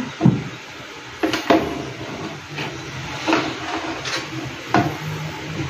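Metal ladle knocking and scraping against a large metal stockpot while soup is served out of it, with about seven sharp clinks spread unevenly through.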